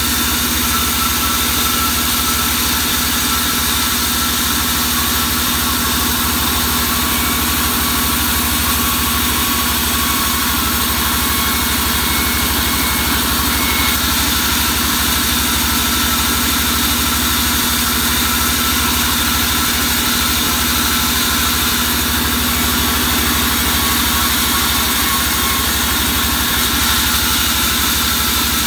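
Sawmill band saw running steadily, a constant machine hum with a steady tone, as wooden slabs are fed through the blade.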